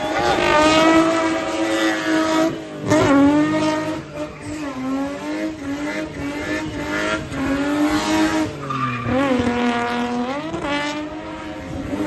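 A car engine at high revs during a spinning burnout: its pitch holds, then dips and climbs back several times as the driver works the throttle. The rear tyres screech as they spin.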